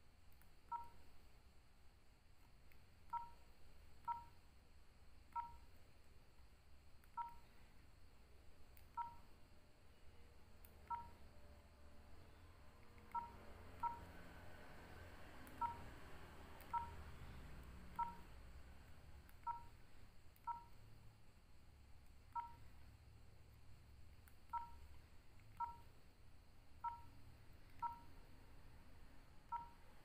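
Nokia 3806 keypad tones: about twenty short two-tone beeps, one for each key press, at irregular intervals as the phone's menus are stepped through.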